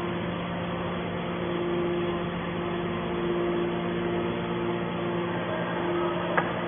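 Scrap metal processing machinery running steadily, an electric-motor hum over a mechanical noise, with one sharp knock about six seconds in.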